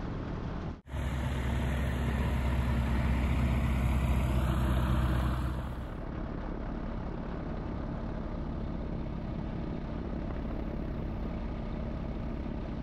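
Super Petrel 100 amphibian's Rotax 912 engine running at low power during the landing rollout and taxi, a steady low hum. There is a brief break in the sound under a second in. The engine is louder for about five seconds, then settles to a quieter steady run.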